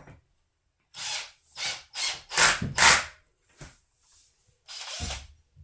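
Power drill driving screws into kitchen cabinet panels in a series of short bursts, the loudest a little past halfway.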